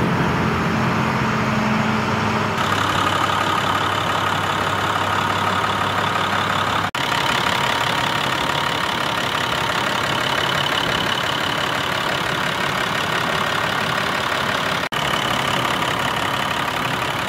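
International WorkStar 7400 dump truck's diesel engine idling steadily, heard with the hood open, the sound broken off for an instant twice.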